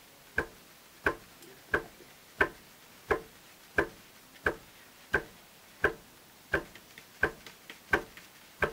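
A plastic sieve of flour being knocked over a metal basin, a sharp tap about every 0.7 seconds at an even pace, shaking the flour through the mesh.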